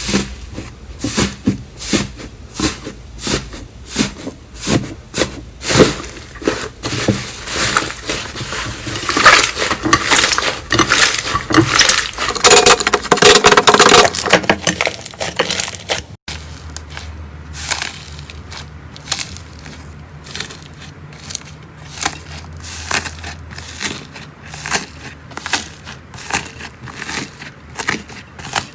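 Slime being pressed and squished by hand close to the microphone, giving rapid sticky pops, clicks and crackles. It grows denser and louder toward the middle, then cuts abruptly to a quieter stretch of similar popping.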